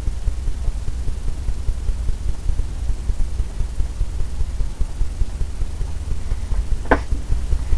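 A steady low rumble of room or background machine noise, with one short knock near the end.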